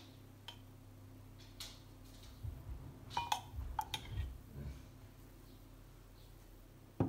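A few light clicks and taps against a glass blender jar as tahini is spooned in, with soft handling thuds in the middle and a sharper knock near the end.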